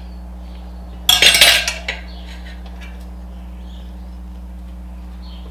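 Metal tire irons clattering and clinking against each other and the wheel rim for under a second, about a second in. A steady low hum runs underneath.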